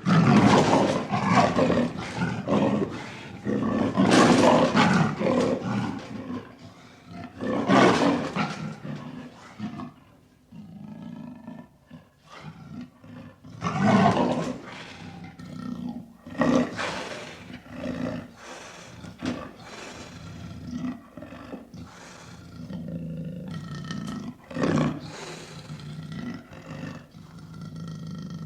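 Lion roaring and growling: several loud, drawn-out roars, with lower rumbling growls between them that make up most of the second half.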